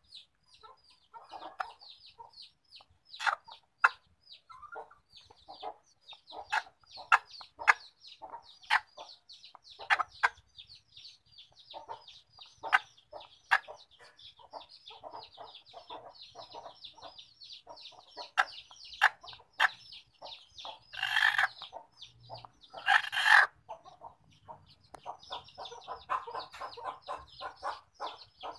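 Village chickens clucking around a coop, over a near-constant run of quick, high chirps. Two louder, longer calls come about three-quarters of the way through, and the clucking grows busier near the end.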